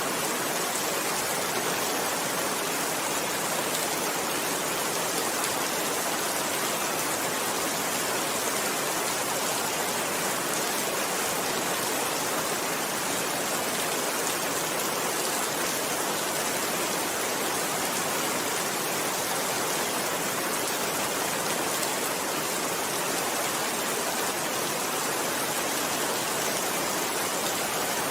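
Steady rain falling, a dense even hiss of drops with no change in strength.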